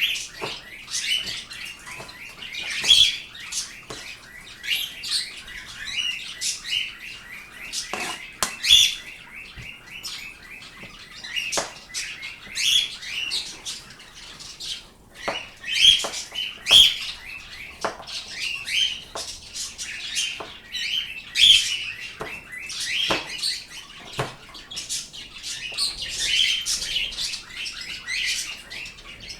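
A group of pet birds chirping and squawking continuously in quick, overlapping calls, with scattered sharp clicks among them.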